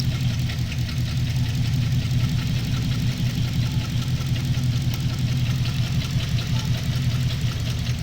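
Holden VE SSV's 6.0-litre V8 idling unevenly with a misfire, with a faint fast ticking above the engine note; the misfire comes from a bent pushrod on cylinder 7.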